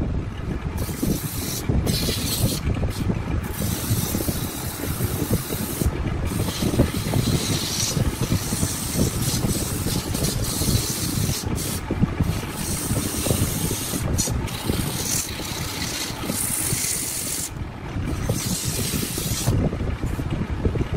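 Wood being rubbed and scraped with an abrasive tool: a continuous rough, scratchy rasping whose high hiss lets up briefly every few seconds.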